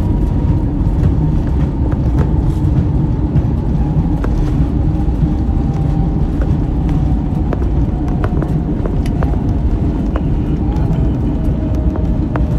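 Steady low rumble of a moving vehicle heard from inside. A faint tone drifts slowly downward over it, with scattered light clicks and rattles.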